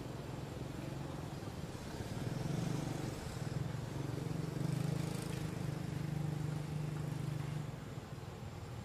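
An engine running steadily with a low hum, growing louder about two seconds in and fading away near the end, like a motor vehicle passing slowly.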